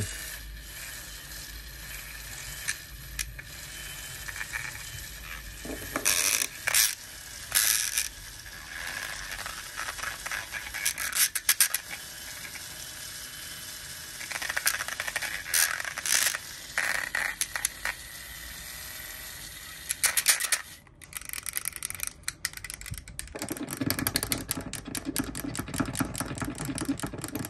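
Small battery-powered hobby paint mixer running in a small glass jar of paint, its spinning metal shaft rattling and scraping against the glass, with sharper clatters now and then.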